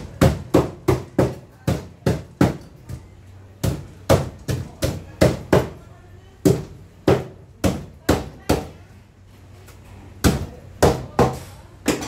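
A knife chopping through fish on a cutting board: about twenty sharp strikes in runs of two or three a second, with a short pause about nine seconds in.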